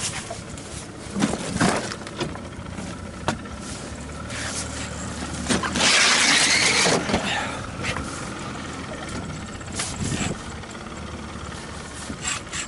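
Small fishing boat's motor idling steadily, with scattered knocks on the boat. About six seconds in there is a loud rushing hiss lasting just over a second.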